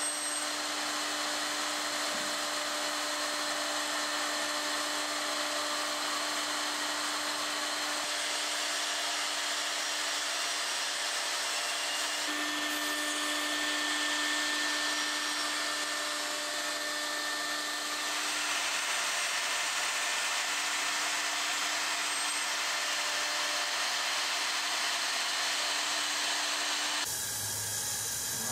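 Electric router running steadily at high speed while cutting a walnut tabletop: a constant motor whine over the noise of the cut. The sound changes in character a few times along the way.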